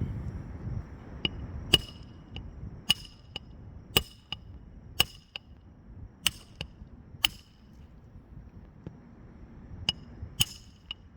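Nails being driven into a new asphalt roof shingle during a repair: about a dozen sharp, ringing metal strikes at uneven spacing, some in quick pairs, with a pause of a couple of seconds past the middle.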